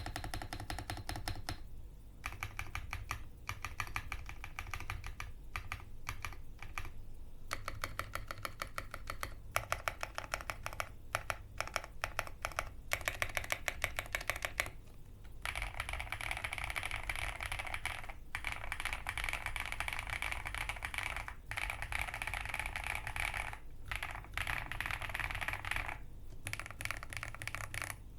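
Xinmeng M87 mechanical keyboard with Black Plum linear switches and OEM double-shot keycaps being typed on: runs of keystrokes with short pauses, a spell of slower, louder single presses in the middle, then fast continuous typing. The stock board has a fairly thocky, lightly poppy sound.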